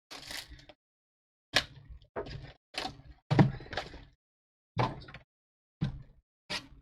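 Cardboard trading-card boxes and packs being handled while the next hobby box is opened: a series of short scuffs, slides and knocks with silent gaps between them, the loudest about three and a half seconds in.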